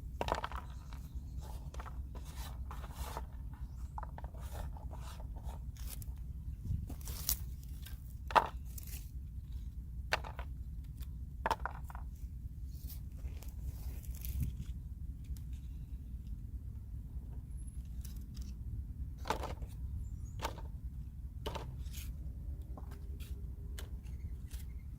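Scattered rustles, scrapes and short sharp snips of hands and a pair of scissors handling and cutting gathered plant material, over a steady low rumble.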